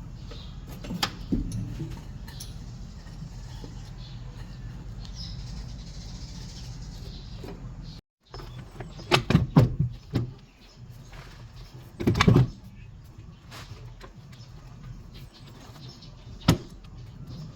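A steady low hum, then several heavy knocks and clanks about nine to ten seconds in and again around twelve seconds, and one sharp click near the end.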